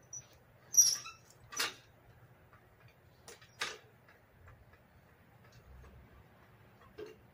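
A handful of short, sharp knocks and clicks of tools and parts being handled during repair work on a riding mower, about six in all, the loudest a brief ringing metal clink about a second in.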